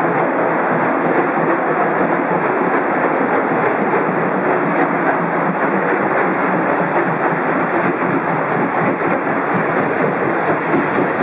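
DR Class 23.10 two-cylinder 2-6-2 steam locomotive departing under steam, making a loud, steady noise of exhaust and escaping steam as it comes up alongside.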